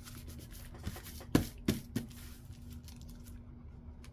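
Hands handling and pressing paper on a craft table: soft paper rustling with four short sharp knocks about a second in, the loudest in the middle.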